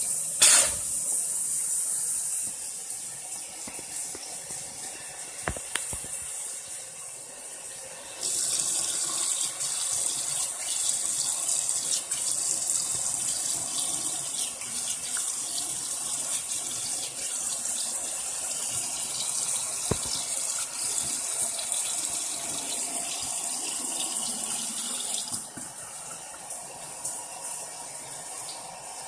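Sink tap running, water splashing into the basin; the flow gets stronger about eight seconds in and drops back near the end. A short loud burst just after the start.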